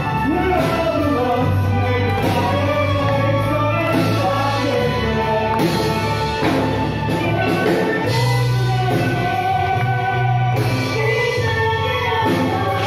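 A song with a lead singing voice over a steady bass line, playing as background music.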